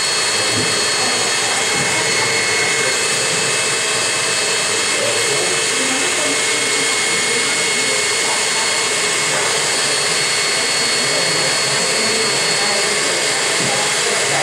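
Electric stand mixer running steadily: a loud, even motor noise with fixed high tones that does not change.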